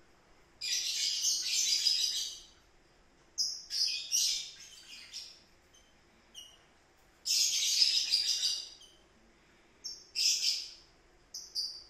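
A bird chirping in about five bursts of rapid high calls, each a second or two long, with quiet gaps between.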